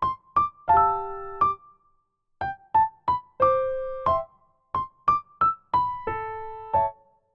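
Background music: a piano-type keyboard playing a melody of single struck notes and occasional chords, each note dying away, with a brief pause about two seconds in.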